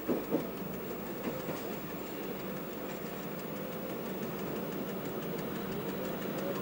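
Bluebird diesel railcar running along the track: a steady engine and running hum, with a couple of short clicks from the wheels near the start.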